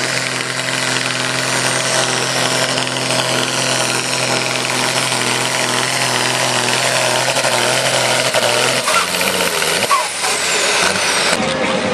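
Diesel engine of a 3.6-ton supersport-class pulling tractor running hard at a steady pitch while it pulls the sled, its stacks pouring black smoke. About nine seconds in the steady engine note drops away and the sound breaks up.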